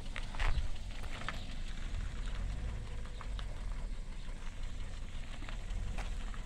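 Small Kia Picanto hatchback creeping at low speed: a low steady rumble with scattered light crackles and clicks, the loudest about half a second in.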